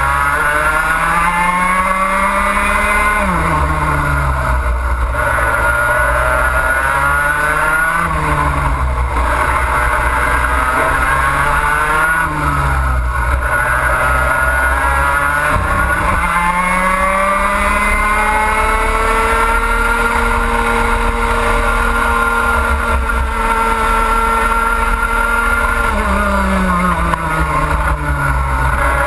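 Two-stroke racing kart engine at full racing pace. Its revs climb out of the corners and drop sharply under braking about three, eight and twelve seconds in, then hold high and steady along a straight before dropping again near the end. A low rumble runs underneath.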